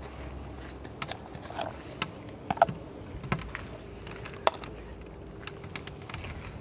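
Onion frying in hot olive oil in a cast-iron pan over a campfire, with scattered pops and clicks over a faint steady background.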